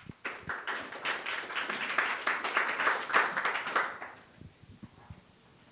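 Audience applauding. The clapping starts right away and dies away about four seconds in.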